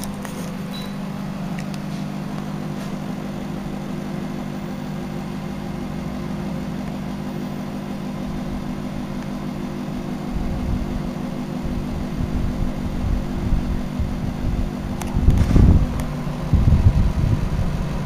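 Microwave oven running with a steady hum. From about ten seconds in, irregular low rumbles and thumps come in over it, loudest near the end.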